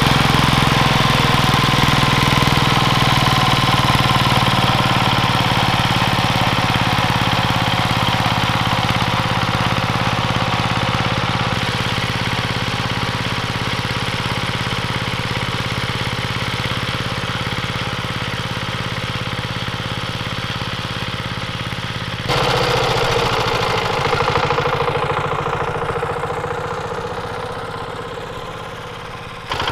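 Yanmar TC14 walking tractor's single-cylinder diesel engine running steadily while it works the soil. About two-thirds of the way through it suddenly becomes louder and then fades away gradually.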